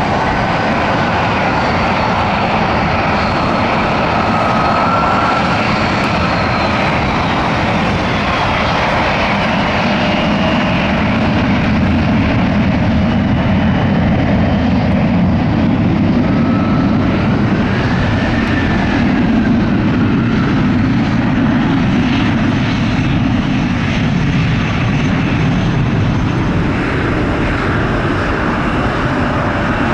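Boeing 737 jet engines spooling up to takeoff thrust and running loud and steady as the airliner rolls away down the runway, with a whine that glides up and down in pitch. A regional jet's engines add a rising and falling whine as it taxis past around the middle.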